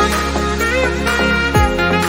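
Background music: an instrumental tune with a wavering melody line over a steady beat, with a low falling bass hit about every two seconds.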